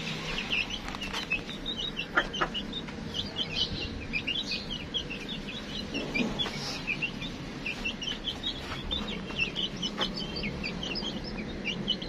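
A flock of small caged birds chattering in a dense, continuous run of short high chirps, with hens clucking.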